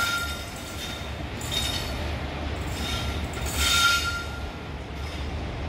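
Indian Railways electric locomotive running light engine: a low rumble of the moving locomotive with short high-pitched wheel squeals against the rails, about a second and a half in, near three seconds, and loudest near four seconds.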